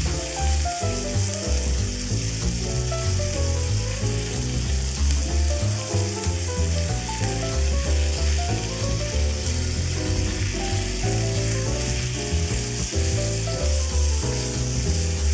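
Kimchi and offal stir-fry sizzling steadily in a small cast-iron skillet as it is stirred with chopsticks. Background music with a bass line plays underneath.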